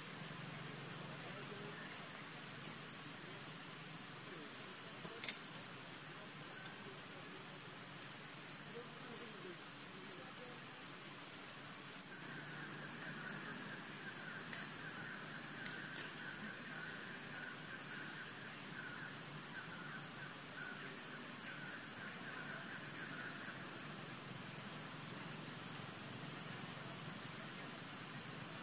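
Steady, high-pitched drone of insects in the forest canopy, holding one shrill tone throughout. A fainter warbling chirr joins through the middle stretch.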